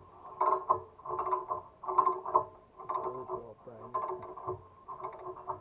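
Small hand ratchet worked back and forth in steady strokes, each stroke a quick run of pawl clicks, about one a second.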